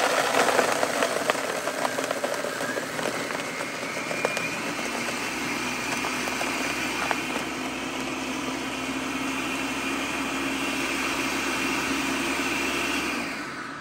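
Ninja countertop blender's motor running, its whine rising in pitch over the first few seconds and then holding steady at high speed. It winds down just before the end.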